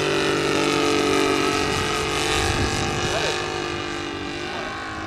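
Saito FG-90R3 three-cylinder radial petrol engine of a large radio-controlled biplane, running steadily with its pitch shifting slightly near the end.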